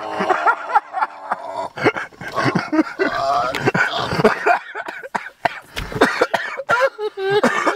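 A person coughing and choking over and over, with voiced cries between the coughs.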